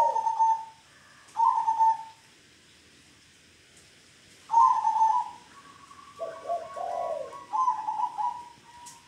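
Caged zebra doves (perkutut) cooing: phrases of low rolling coos that step up to a higher held note, in two bursts with a pause of about two seconds between them. A thin steady whistle-like tone runs under the second half.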